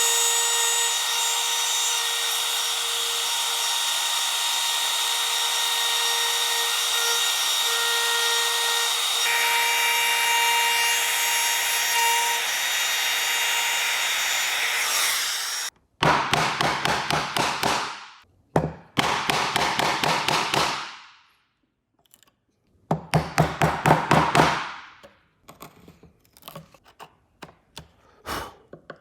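Power tool cutting wood, running steadily with a whine for about sixteen seconds, its pitch shifting about halfway, then stopping abruptly. Three bursts of fast, even back-and-forth strokes follow, typical of hand sawing, and then a few light taps near the end.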